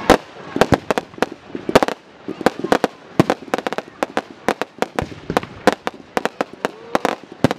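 Professional aerial fireworks bursting in quick, irregular succession: sharp bangs several times a second over a steady crackle.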